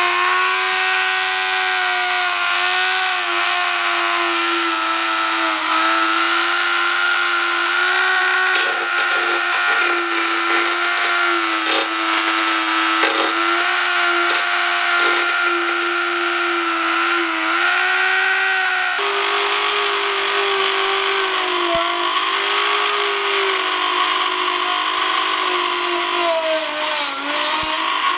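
Corded rotary multi-tool spinning a small wire brush against a bare aluminium fuel tank to strip paint: a steady, high motor whine whose pitch wavers slightly as the brush is worked over the metal.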